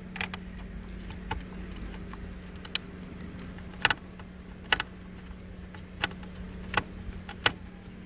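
Screwdriver turning a screw out of the plastic frame of a Toyota RAV4 side-mirror housing: small sharp clicks, irregular and roughly one a second, over a steady low hum.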